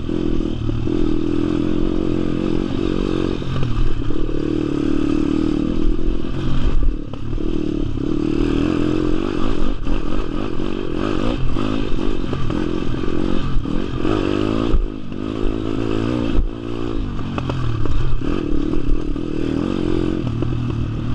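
WPB 160R pit bike's single-cylinder four-stroke engine revving hard and easing off again and again, pitch rising and falling, with brief drops in level as the throttle is shut, while the chassis clatters and rattles over the bumpy dirt track.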